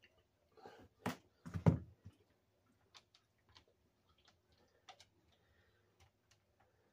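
A container of milk being set down on a plywood floor: a brief rustle, then two knocks about a second in, followed by scattered light clicks and taps.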